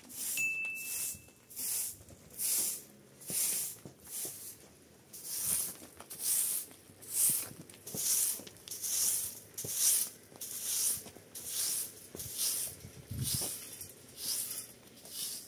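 Short straw hand broom sweeping a bare dirt ground in steady strokes, a brisk swish a little more often than once a second.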